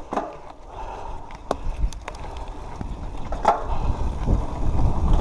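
Mountain bike rolling fast down a dirt trail: tyres running over packed dirt and leaves, with sharp clicks and knocks from the bike's chain and frame over bumps, the loudest about three and a half seconds in. A low rumble of wind on the helmet microphone builds over the last couple of seconds as speed picks up.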